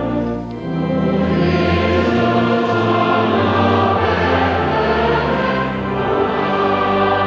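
Choral music: a choir singing slow, held notes, with a short dip just after the start.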